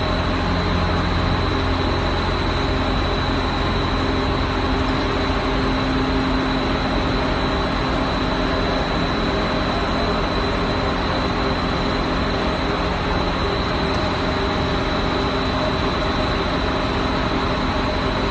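PVC coil mat extrusion line running: a steady, dense machine noise with a thin, high, steady whine over it.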